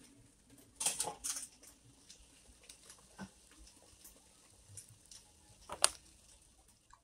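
Light clicks and knocks of a stainless steel steamer pot being handled with an oven mitt on the stove. A cluster of clatter comes about a second in, a single tap near three seconds, and one sharper metallic clink near six seconds.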